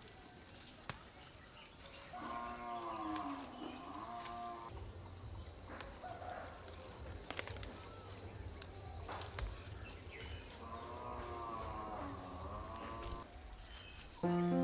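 A cow mooing twice, each a long call of about two and a half seconds that bends in pitch, with several seconds between them.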